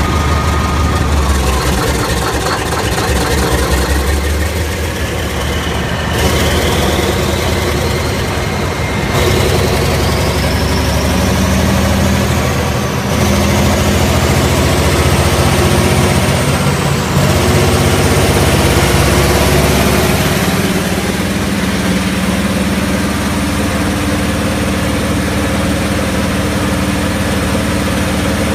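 Diesel engine of a 1998 Morbark 1300 tub grinder running steadily. From about six seconds in, a high whine rises in pitch four times in a row, and the engine is heavier in the middle stretch before settling back.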